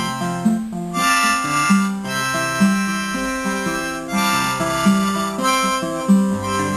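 Harmonica playing a melody of held notes in short phrases over a Fender acoustic guitar, with picked bass notes moving underneath.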